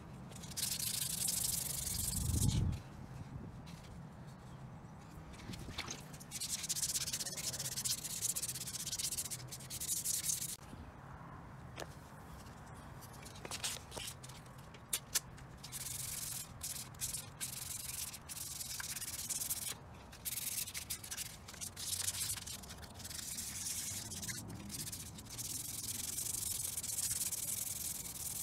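Wet-sanding a carbon fiber shift surround by hand with fine-grit wet/dry sandpaper: stretches of scratchy rubbing strokes broken by short pauses. There is a low thump about two and a half seconds in.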